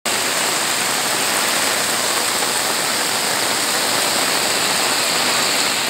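Heavy monsoon rain pouring down onto floodwater, a dense steady hiss.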